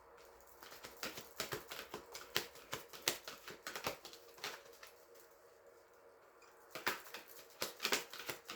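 A deck of tarot cards being shuffled by hand: quick runs of card clicks and flaps, stopping for about two seconds midway, then starting again.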